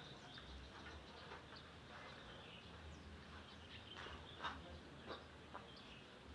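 Faint background ambience with scattered short bird chirps over a low hum, one chirp a little louder past the middle.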